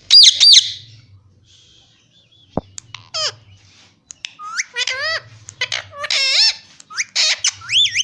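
Parakeets calling: two loud, shrill calls at the start, then from about halfway a quick run of harsh, repeated squawks, with a single tap in between.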